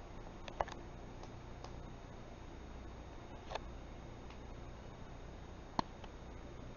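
Low steady hum and hiss under a few sharp clicks. The loudest clicks come about half a second in and near the end, with a weaker one midway, typical of a camcorder being handled while it pans.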